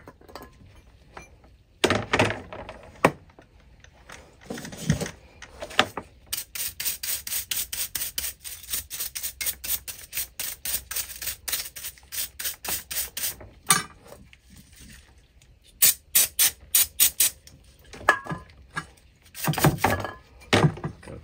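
Plastic-bristle brush scrubbing an oil burner's electrode and nozzle assembly wet with choke cleaner. The strokes come in quick, even runs of about five a second, a long run from about six seconds in and shorter ones near the end. A couple of longer rough noises come in the first five seconds.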